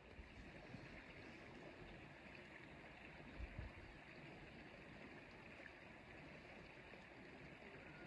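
Faint, steady trickle of a shallow creek's water flowing, with a brief low thump about three and a half seconds in.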